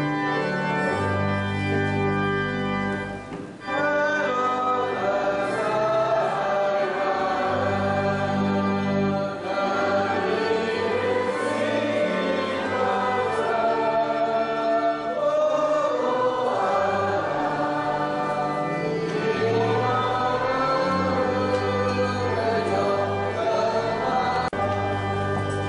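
Singing with a held organ accompaniment, in the manner of a hymn. The organ plays alone at first, a short break comes about three and a half seconds in, and then the voices come in over sustained organ chords. The singing stops near the end and the organ carries on.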